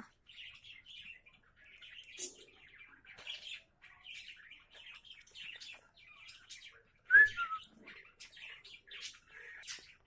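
Cockatiel and other aviary birds chirping: a running string of short, high chirps, with one loud call about seven seconds in that drops in pitch.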